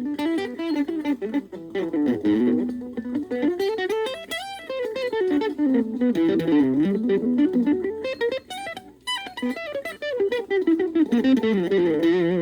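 Gaban Les Paul-type electric guitar played through a VOX Soundbox Mini amp: a continuous melodic phrase of quick single-note runs rising and falling in pitch.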